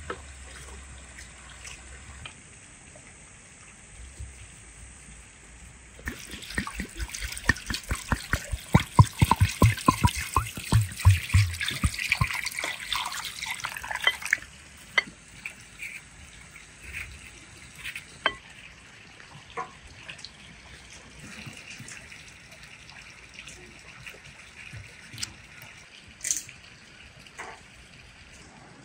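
Water sloshing and splashing in quick strokes for about eight seconds midway, then scattered drips and small splashes.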